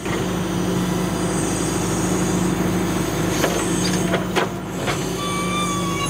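John Deere 310SE backhoe's diesel engine running steadily while the boom moves the homemade splitter attachment, with a few sharp clanks partway through. A high, steady whine starts about five seconds in.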